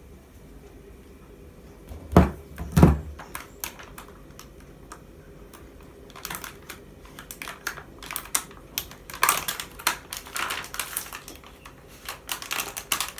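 Two heavy knocks as a stone mortar bowl is set down on a table, followed by a long run of quick, irregular small clicks and taps from hands and a small knife working on ingredients at the counter.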